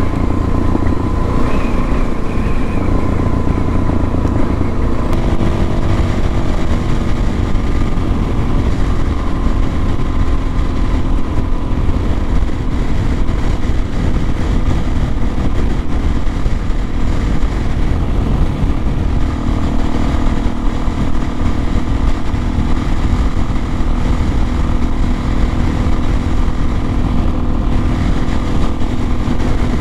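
Suzuki DRZ400S single-cylinder four-stroke motorcycle engine running steadily while being ridden, its engine note shifting slightly about two-thirds of the way through.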